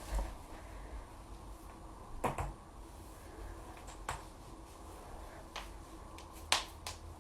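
Human joints cracking: a series of sharp pops spaced a second or two apart, one a quick double, with the loudest near the end.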